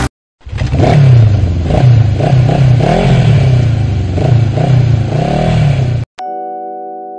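Motorcycle engine revved again and again, its pitch rising and falling in quick blips for about five seconds. It cuts off near the end and gives way to a held chime chord.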